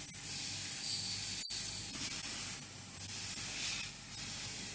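Airbrush spraying paint, its air hissing in about five short bursts, roughly one a second, as the trigger is pressed and released.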